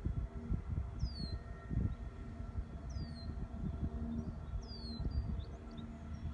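Wind buffeting the microphone in irregular gusts over a steady hum of several pitches from the solar facility's equipment. A bird gives a short down-slurred whistle three times, about every two seconds.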